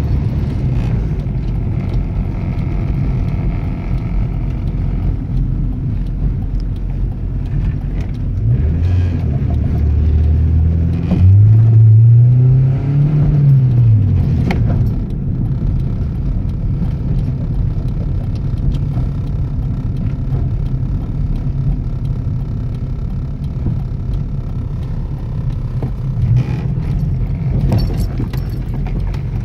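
Honda Civic with a GSR engine running at a steady idle. About eleven seconds in it is revved once: the pitch climbs, then falls back to idle about three seconds later.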